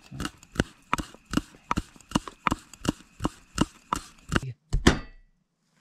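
Knife chopping food on a cutting board in steady, even strokes, about three a second, cutting off abruptly near the end.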